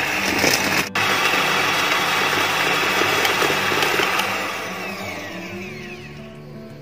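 Electric hand mixer whirring as it beats eggs and sugar into a foam for sponge cake batter. About four and a half seconds in it is switched off, and its whine falls in pitch and fades as the motor spins down.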